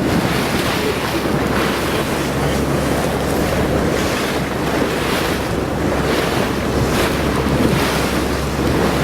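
Wind buffeting the microphone over the wash of sea water against a small boat. A steady low rumble runs underneath.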